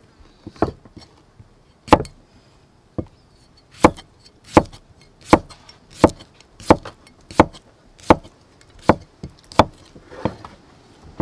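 Knife chopping cucumber on a wooden chopping block: a series of sharp knocks of the blade on the wood, a few spaced out at first, then about one every three-quarters of a second.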